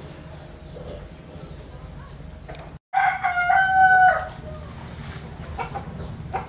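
A rooster crows once, about three seconds in: a loud, held call lasting a little over a second. Small birds chirp faintly around it.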